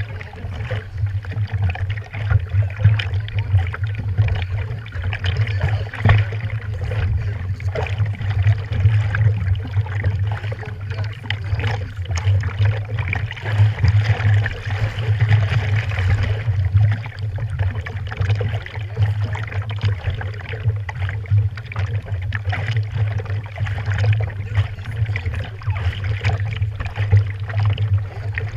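Small waves sloshing and lapping against a stand-up jet ski's hull and a camera at the waterline, uneven and continuous, over a steady low rumble.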